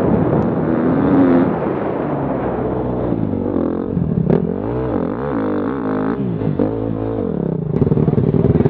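Enduro motorcycle engine heard from on board, revving up and down repeatedly as the bike is ridden through a grassy section. Near the end it settles into a steady, rapidly pulsing running note.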